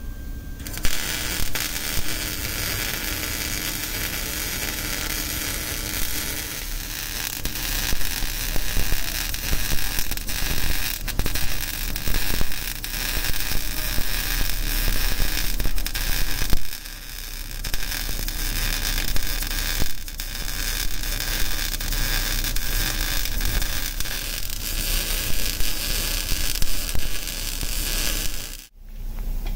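MIG welding arc running a bead on steel square tubing: a steady, crackling hiss that starts about a second in, pauses briefly twice past the middle, and cuts off suddenly near the end.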